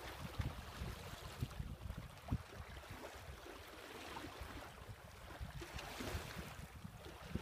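Water gurgling and lapping along the hull of a sailboat moving slowly under sail, with wind buffeting the microphone in low gusts. A few short knocks sound, the loudest about two seconds in.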